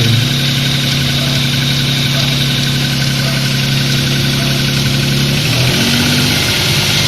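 Opel X25XE 2.5-litre V6 idling with a steady knock that the owner puts down to piston-skirt slap after 420,000 km, present cold and hot. The idle note shifts briefly about five and a half seconds in.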